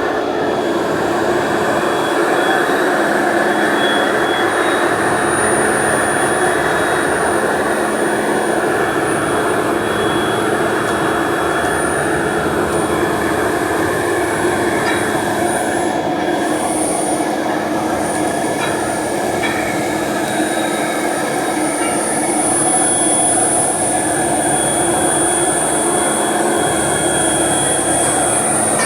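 Heavy machinery running steadily, a continuous loud mechanical noise with faint high whines on top.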